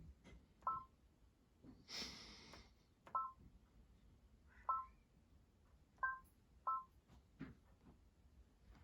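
Short two-tone button beeps from the Brother VR embroidery machine's touch panel as settings are keyed in, five of them at irregular gaps of one to two and a half seconds. A brief rustle comes about two seconds in.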